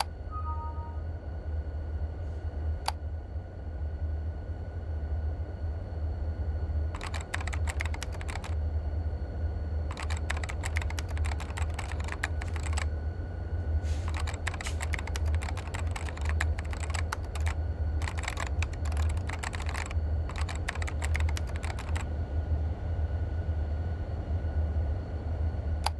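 Rapid typing on a keyboard in several bursts of a second or two up to a few seconds, starting about seven seconds in and stopping a few seconds before the end, over a steady low hum.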